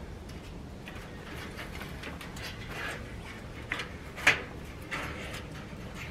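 Handling noises on a wooden rabbit hutch's wire-mesh door: scattered light clicks and rattles of wire and mesh as a small solar fan is fastened on with wire, with one sharp knock about four seconds in.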